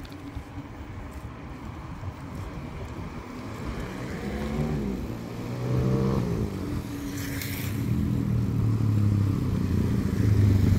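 Engines of oncoming road traffic, a small motorcycle and a light van, growing louder through the second half as they approach, heard from a moving bicycle.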